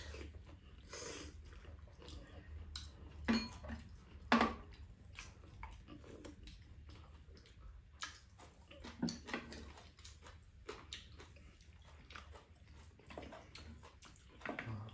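Two people eating mixed bibimbap at close range: chewing, with scattered short clicks and wet mouth smacks.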